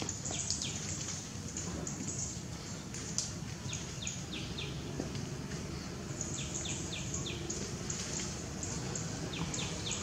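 Outdoor ambience: a steady low background noise, with a bird giving short chirps in quick runs of about four, repeated several times.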